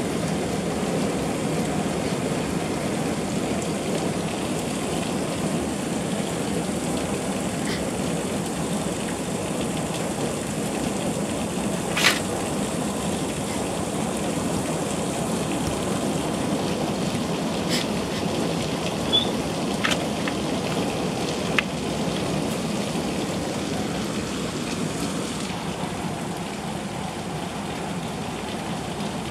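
Heavy rain pouring down steadily onto grass and pavement, with a few sharp drip taps here and there. The rain sounds a little softer near the end.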